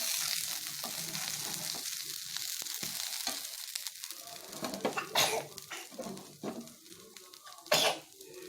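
Kari dosa frying in oil on a hot dosa griddle over medium flame, a steady sizzle that fades somewhat toward the end. A metal spatula scrapes against the griddle a few times, the loudest stroke near the end.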